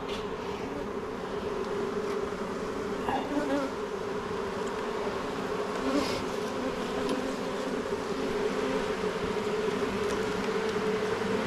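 Honeybees buzzing over an open hive: a dense, steady hum that holds one pitch.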